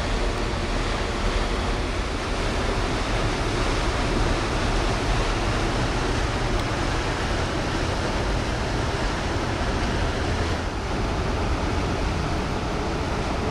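Ferry PHIVOS passing at close range: a steady rush of water from its bow wave and wake, over a deep, even rumble.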